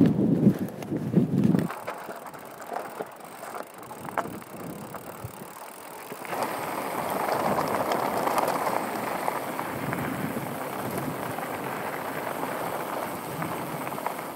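Mountain bike rolling, heard from a helmet camera: a low rumble as it crosses a wooden plank deck for the first couple of seconds, then quieter clicks and rattles. From about six seconds in comes a steady rush of knobby tyres on loose gravel, mixed with wind on the microphone.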